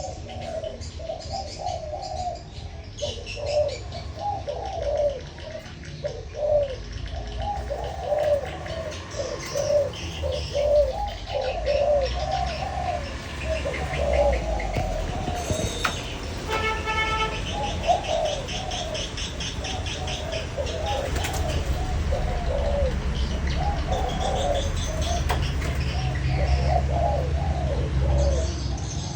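Spotted doves cooing over and over, two birds' phrases overlapping and answering each other, with small birds chirping faintly in the background.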